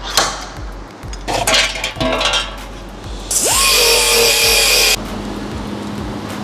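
A few sharp metal knocks from a slide hammer yanking at a welded body bracket. About three seconds in, a pneumatic air tool runs with a loud hiss for about a second and a half and cuts off suddenly, and a steady low hum follows.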